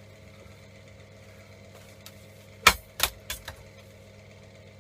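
Steady hum of a workshop extraction fan, with a quick run of four sharp knocks and clinks a little past halfway, the first the loudest, as parts of a stripped MIG welding torch are handled.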